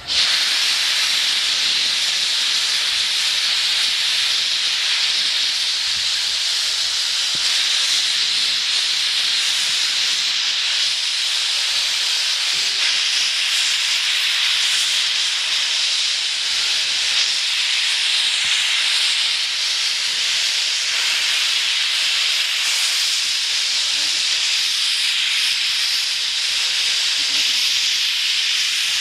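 C56 steam locomotive venting steam from its open cylinder drain cocks: a loud, steady hiss that starts abruptly and holds level.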